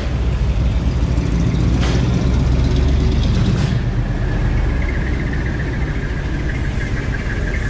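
Vehicle engine idling with a steady low rumble, heard from the street. Two sharp snaps come from the karateka's quick kata movements, about a second and a half apart, and a thin steady high tone comes in about halfway.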